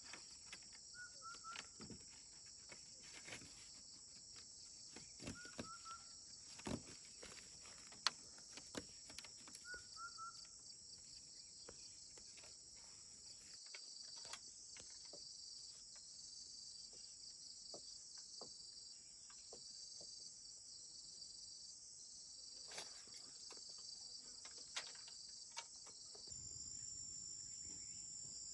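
Steady, faint chorus of insects with a fast pulsing shimmer, scattered with small clicks and knocks. A short high two-note chirp comes three times, about every four and a half seconds, in the first ten seconds.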